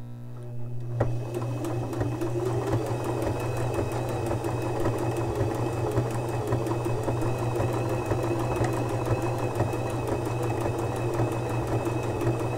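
Electric domestic sewing machine sewing a straight stretch stitch through stretchy knit fabric: a steady motor hum with a rapid, even needle clatter that starts about a second in.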